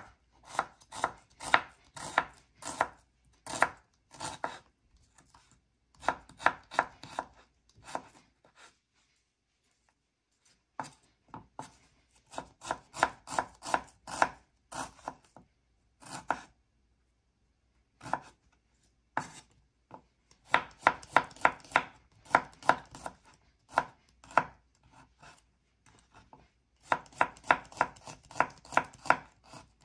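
Kitchen knife slicing shallots and garlic on a cutting board: runs of quick, even knife strokes broken by short pauses.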